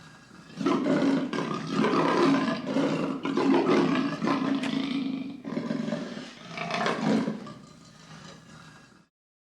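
Lion roaring: one long roar of about five seconds, then a shorter roar that fades away, the sound cutting off abruptly near the end.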